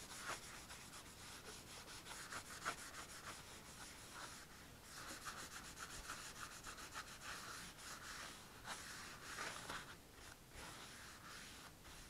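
Cloth rubbing linseed oil into an oak panel: a faint, soft rubbing in many quick back-and-forth strokes, with a brief pause a little before the middle.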